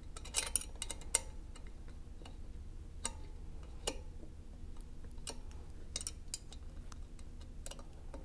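M5 Allen wrench clicking and ticking against steel captive socket screws as they are tightened on a metal flange: about a dozen sharp, irregular metal clicks, the loudest within the first second and a half.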